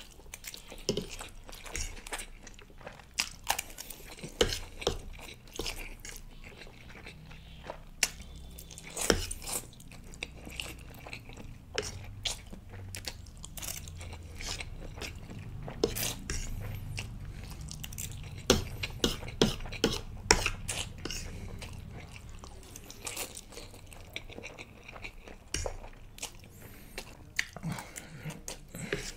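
Close-miked eating of spicy instant ramen noodles: wet chewing and slurping of forkfuls, with many irregular sharp mouth clicks.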